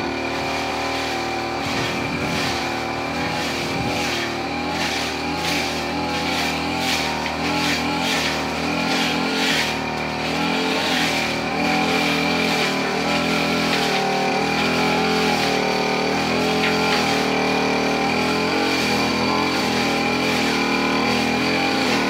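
Petrol engine of a grass-cutting machine running continuously and dominating the sound, its pitch wavering up and down a little, with high hissy noise at times that may be the storm wind.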